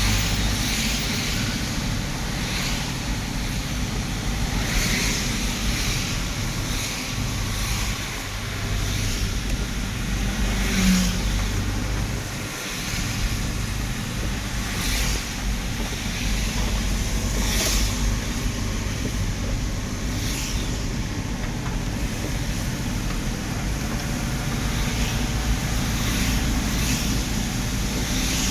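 Car driving in rain: a steady engine and road rumble under a constant hiss, with a short swish every couple of seconds.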